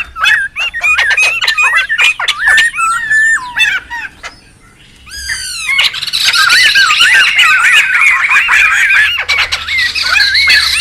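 Laughingthrushes (poksay) calling: harsh squawks and rapid chattering with quick up-and-down whistled glides. There is a brief lull about four seconds in, then a dense, overlapping chorus of chatter.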